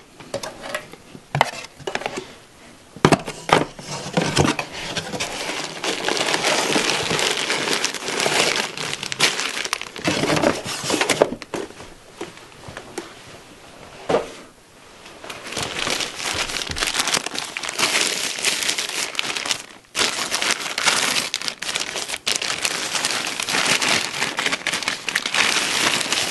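Plastic packaging crinkling and rustling as a camcorder is handled and unwrapped from its plastic bag, with a few knocks in the first few seconds.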